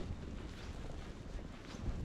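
Wind buffeting the microphone during a snowstorm, with footsteps crunching in snow at a walking pace.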